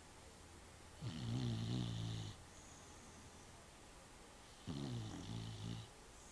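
Snoring: two long pitched snores, one about a second in and another near the end, each lasting a little over a second.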